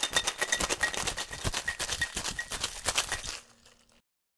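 Cubed ice rattling hard inside a cocktail shaker being shaken in a quick, even rhythm; the shaking stops near the end.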